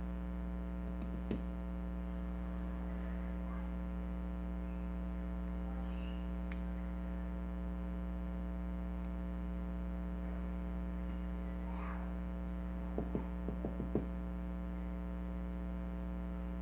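Steady electrical mains hum, with a few faint light clicks and taps of small lock parts being handled, a little cluster of them near the end.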